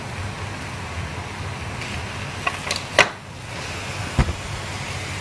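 Steady low hum of room noise, with a few light clicks and a sharp click about three seconds in, then a low knock a second later, from the plate of biryani and serving utensils being handled.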